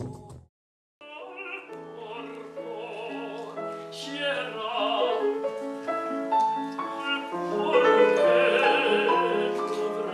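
Operatic bel canto singing with piano accompaniment, held notes sung with a wide vibrato. It begins about a second in, after the previous music cuts off and a brief silence.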